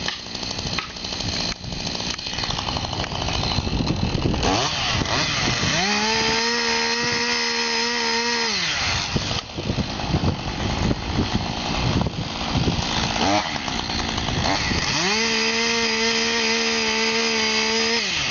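Two-stroke chainsaw running unevenly at low speed, then revved up to a steady full-throttle whine twice, about three seconds each time, dropping back to low speed in between.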